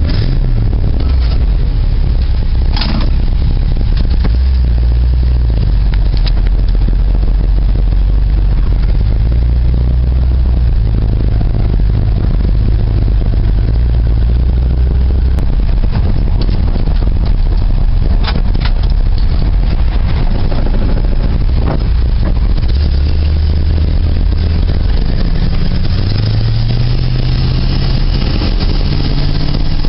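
An engine running steadily. Its pitch shifts up and down a few times, and there are a few sharp clicks.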